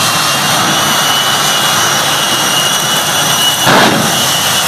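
Jet engine of a jet-powered semi truck running hard, a steady roar of noise with a high whine over it. About three and a half seconds in comes a louder whoosh as flame shoots from the stacks.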